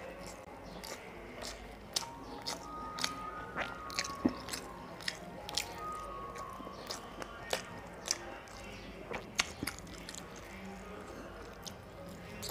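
Close-miked chewing of a handful of rice and chicken curry eaten by hand, with many sharp mouth clicks and smacks at irregular intervals.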